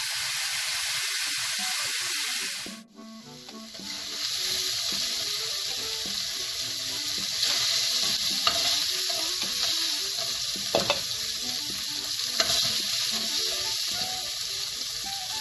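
Beef strips frying in a very hot pan on high heat: a steady sizzle with a few sharp pops. The sizzle drops away briefly about three seconds in, then resumes.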